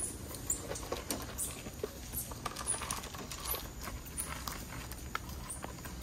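Squirrel monkeys scrabbling about on a food tray and on the person holding it: a patter of small clicks and rustles, with scattered brief, very high-pitched peeps.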